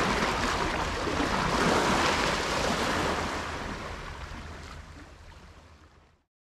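Sea surf washing against shoreline rocks, a steady rushing hiss that fades away over the last few seconds to silence.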